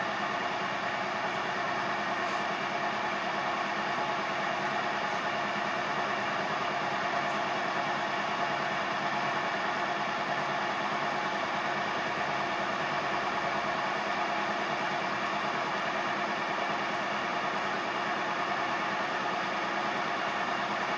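Knee mill running with a steady even hum from its motor and spindle, as a fluted cutter works a row of holes in square steel tubing clamped in the milling vise.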